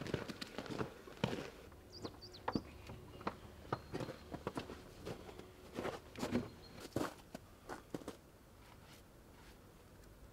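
Footsteps in thin snow, an irregular run of steps that stops about eight seconds in.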